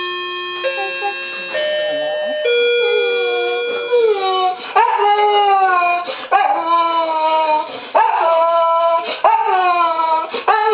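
A dog howling and yelping in repeated falling cries, about one every second and a half, from about three seconds in. It is preceded by a few steady electronic tones that change pitch in steps, like a toy's melody.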